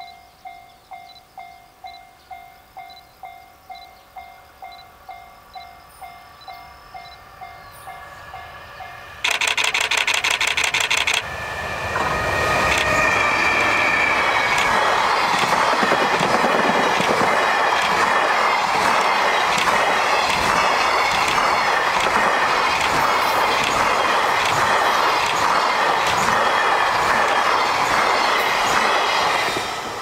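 A level-crossing bell dings just under twice a second. About nine seconds in, the EH500 electric locomotive sounds its horn for about two seconds. A long container freight train then passes close by, running loudly with a rhythmic clickety-clack of wheels on the rails, and the sound drops off sharply near the end.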